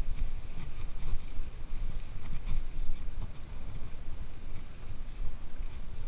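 Wind buffeting the microphone of a mountain bike's onboard camera while the bike rolls over a rough dirt road. Faint, rapid ticking of the rear freehub ratchet (catraca) runs under it, mostly in the first half.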